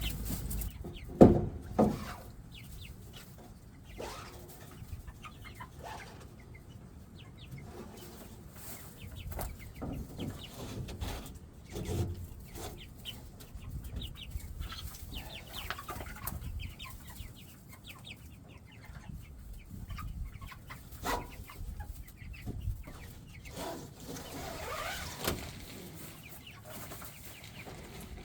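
A flock of young Cornish Cross meat chickens peeping and clucking in scattered short calls, with two sharp knocks about a second in.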